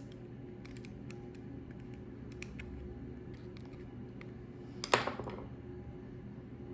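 Scattered light clicks and taps of a small tool and parts being handled while a torn O-ring is worked out of a water fitting, with one sharper click about five seconds in. A low hum runs underneath.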